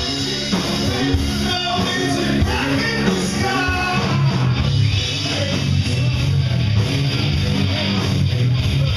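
Live rock band playing: electric guitar, bass and drums with a lead singer, heard from within the audience.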